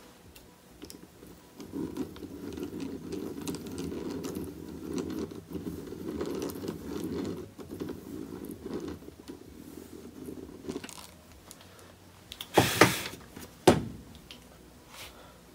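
Hand-cranked drill turning steadily for about nine seconds, its gears whirring and clicking as the depth-marked bit bores a screw pilot hole through a brass butt hinge into a walnut door stile. Near the end, two short sharp knocks.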